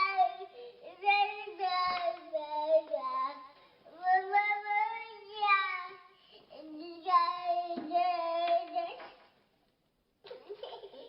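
Small boy crying inconsolably in a series of long, high-pitched wails, each held a second or two, breaking off near the end before a few short sobbing sounds.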